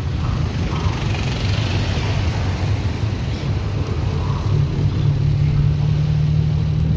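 Tuk-tuk engine running steadily as the tuk-tuk drives along a street, heard from aboard, a loud even hum that holds its pitch.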